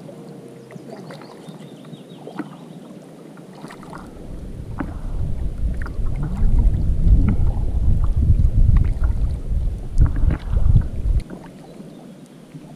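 Wind rumbling against the microphone, building from about four seconds in and cutting off sharply near the end, with scattered small knocks throughout.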